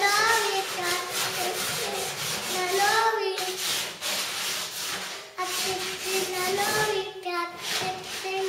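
A young child's high voice singing in drawn-out, gliding notes over a rhythmic rubbing scrape on wood, several strokes a second.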